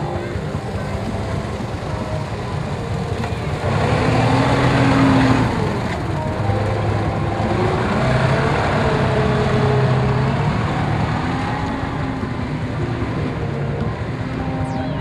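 Tracked armoured vehicle's engine running as it drives through mud, its pitch rising and falling. It is loudest about four to five seconds in.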